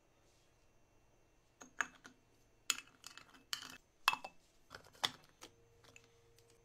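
A quick run of sharp clicks and clatters, about a dozen in all, as vegetable pieces and plastic parts knock against a glass food-chopper bowl. The chopper's motor is not yet running.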